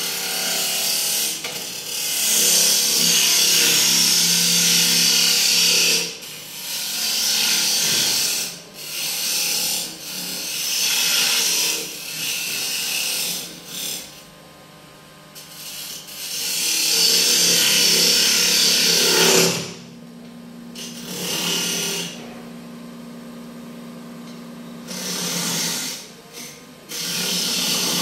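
Wood lathe spinning a walnut blank while a turning tool is pressed against the wood in repeated passes: bursts of hissing, scraping cutting noise, some brief and some several seconds long, over the steady hum of the lathe motor.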